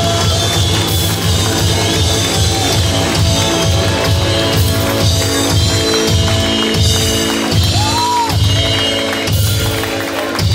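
A rock band playing loud and live: distorted electric guitar, electric bass and a drum kit pounding a steady beat. About eight seconds in, a held note bends up and back down.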